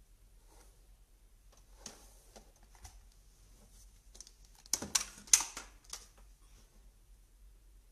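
Handling noise: scattered light clicks and taps, then a short cluster of louder knocks and rustles about five seconds in as the phone is pressed and moved against her body. No hair dryer motor is running.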